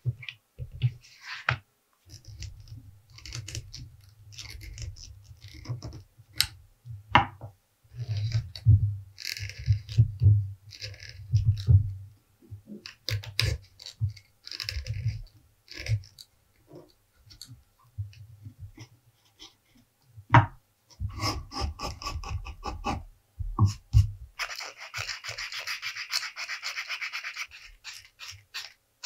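Hands working vegetable-tanned leather: scattered scrapes, rubs and light knocks against the work surface. About 25 seconds in, a few seconds of steady rapid scratching as abrasive paper is rubbed along the edge of a leather piece.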